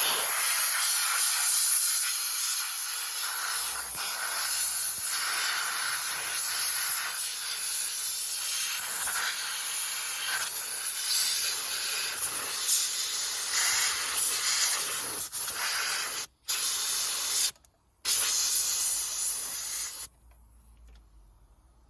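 Compressed-air blow gun hissing loudly and steadily, blowing spilled diesel off the engine around a newly fitted injector pipe. The air cuts out briefly twice near the end, then stops about two seconds before the end.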